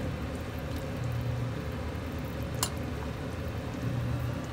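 Chicken broth simmering and bubbling in a stainless-steel pot as a ladle stirs through it, with a single sharp clink about two and a half seconds in.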